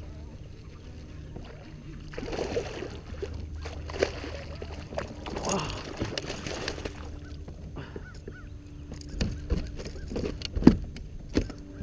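A hooked bass thrashing and splashing at the water's surface beside a kayak, then a landing net plunged into the water with a splash to scoop it. From about nine seconds in come sharp knocks and clicks of the net and gear against the plastic kayak.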